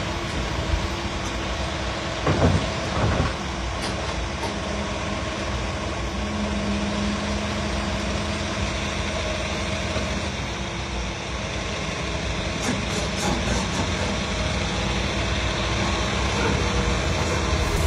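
John Deere 350G LC crawler excavator working, its diesel engine running steadily under load, with two short louder noises about two and a half and three seconds in.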